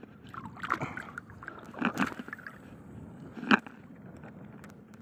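Shallow seawater sloshing and lapping around a wading angler, with a few short splashes, the loudest about three and a half seconds in.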